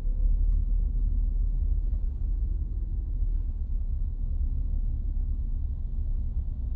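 Steady low rumble of a car in motion, heard from inside the cabin: engine and road noise with little else.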